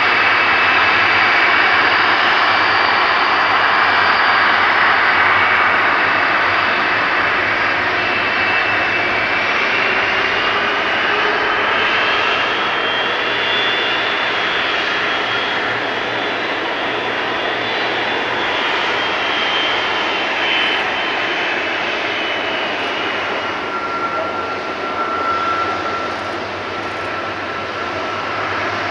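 Boeing 747-400F's four Rolls-Royce RB211 turbofans running at low taxi power, a steady jet hiss with high whining tones that drift slowly in pitch as the freighter turns onto the runway. A lower whine comes in during the last few seconds.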